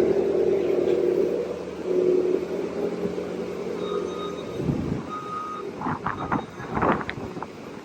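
A farm loader's engine running steadily while its backup alarm gives two short beeps about four and five seconds in. Near the end come a run of metal clanks and knocks.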